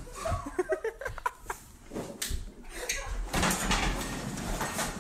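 Rowdy commotion in a small room: shouting voices mixed with several sharp knocks and bangs.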